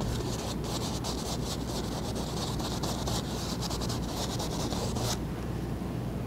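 Paintbrush scrubbing oil paint onto a stretched canvas: rapid back-and-forth strokes with a scratchy hiss that stop suddenly about five seconds in.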